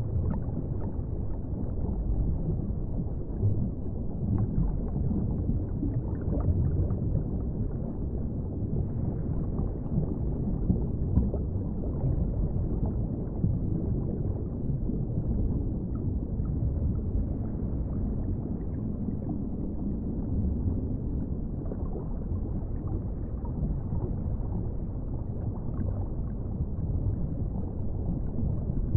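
Underwater ambience: a steady, muffled low rumble of water with little above the low range, and a few small clicks here and there.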